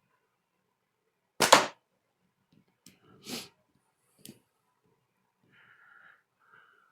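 A slingshot shot with 8 mm steel: one sharp crack of the bands and pouch releasing and the ball striking, about a second and a half in, followed by softer rustling and a small click as the next shot is readied.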